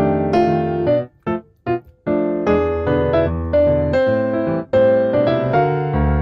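Background music played on piano: struck chords with a few short, detached chords and brief gaps about a second in, then flowing continuous playing.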